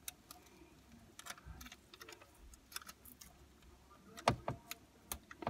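Faint rustling and scattered clicks of a phone being handled and rubbing against skin and clothing, with a sharper knock about four seconds in and another near the end.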